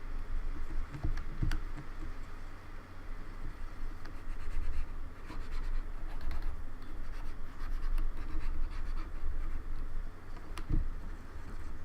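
Scratchy rubbing and handling on a Logitech K360 keyboard as its sticky keys are cleaned and worked, with a few sharp clicks.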